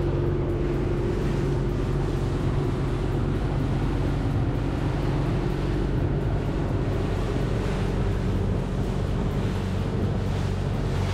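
Engine of a 6.5-metre rigid-inflatable boat (RIB) running steadily under way, with wind on the microphone and water rushing past the hull.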